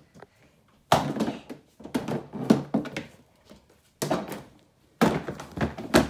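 Hollow plastic knocks and thunks from the body of a plastic ride-on toy Jeep as its seat is handled and lifted off the battery compartment: a run of separate impacts with short rattles, the first about a second in.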